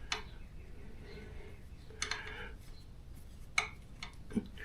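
Faint, scattered metallic clicks and scrapes, about four of them, of a T-handle hex wrench working a tight bolt out of a scooter's basket mount.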